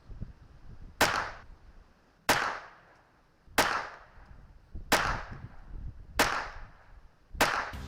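Six shots from a Taurus TX22 Competition pistol firing Eley Contact subsonic .22 LR, evenly paced about 1.3 seconds apart, each a sharp report with a short ringing tail.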